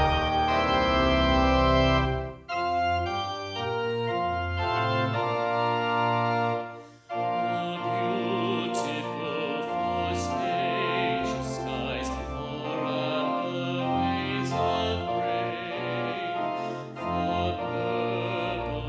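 Organ playing sustained chords, with two short breaks between phrases in the first seven seconds.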